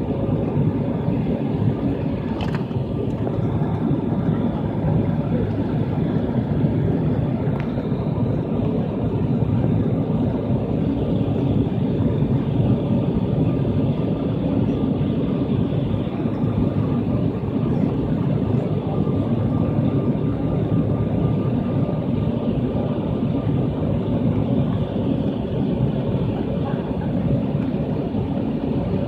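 Steady cabin noise of a jet airliner heard from a window seat: engine and airflow noise, low and even, as the plane descends with its flaps extended.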